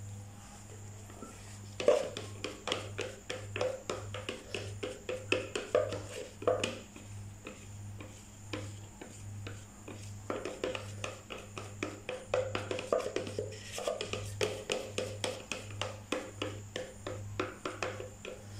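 Spatula scraping thick soap batter out of a jug into a mold, in quick repeated strokes, in two runs with a pause of a few seconds between them.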